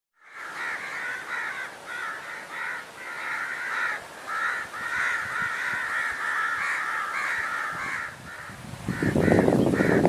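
Crows cawing, a long run of short calls one after another. About nine seconds in, a louder rough noise takes over.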